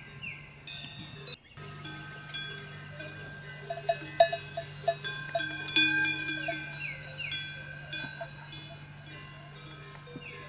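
Livestock bells clanking at irregular intervals, as from grazing animals moving, with strikes clustering in the middle.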